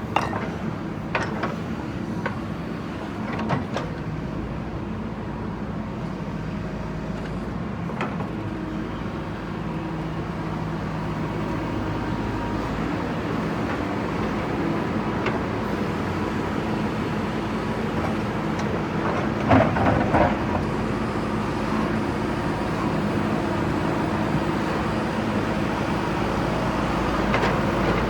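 Diesel engine of a JCB backhoe loader running steadily under working load, with scattered knocks and clatter as it breaks up brickwork; the loudest cluster of knocks comes about twenty seconds in.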